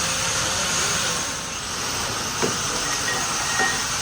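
Steady, loud hiss, like gas or air rushing, with a couple of faint ticks partway through.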